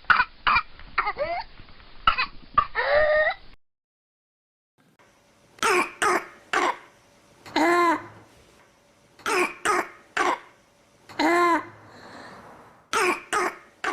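Demonstration cough recordings: first a rapid fit of coughs with high, rising whooping in-breaths, typical of whooping cough; then, after a brief silence about three and a half seconds in, a run of loud, pitched barking coughs in pairs and singles, typical of a barking cough.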